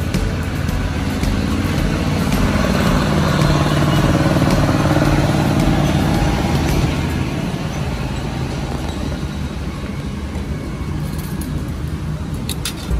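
Street traffic passing on a wet road, with a vehicle engine swelling to its loudest in the middle seconds and then fading. Near the end come a few light clinks of a metal spoon against a soup bowl.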